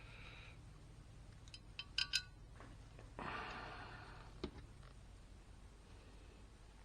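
Small metal shifter parts clinking together sharply a few times about two seconds in, then a breathy exhale and a single light knock, over a faint steady hum.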